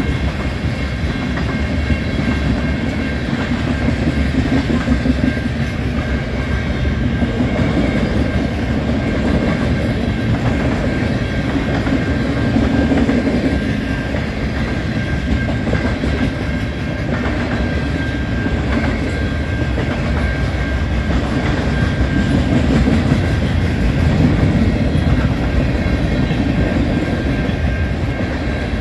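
CN freight cars rolling past a level crossing at about 36 mph, with a continuous rumble and steel wheels clacking over the rail joints. A steady high ringing tone from the crossing bell runs underneath.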